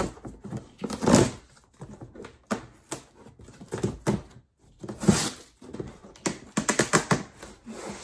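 Cardboard shipping box being handled and pried open by hand: irregular scrapes and rubs on the cardboard with dull thumps, and a quick run of ticks near the end.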